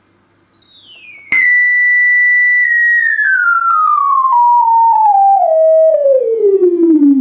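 Electronic sine-like tone played through a loudspeaker, sweeping down in pitch as a resonance sweep. It starts faint and high, then with a click about a second in it turns loud and holds one steady high note. After that it falls in small steps and glides down to a low hum, with fainter overtones above it.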